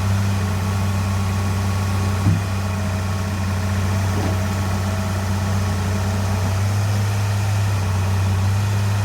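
Excavator's diesel engine idling steadily, with one short knock about two seconds in.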